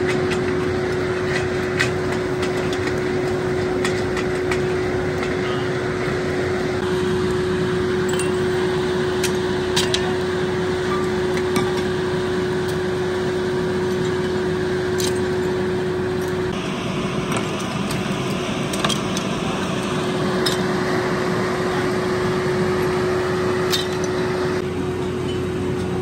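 Scrap metal pieces, broken cylinder sleeves and gear parts, clinking sharply now and then as they are picked through and gathered, over a steady mechanical hum with a constant tone.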